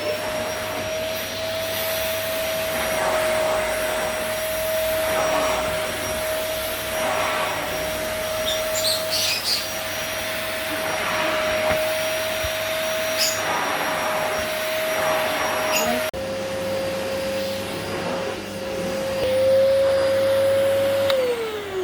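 Pullman Advance Commander 900 backpack vacuum cleaner running with a steady high motor whine. Near the end it is switched off and the whine falls away as the motor winds down.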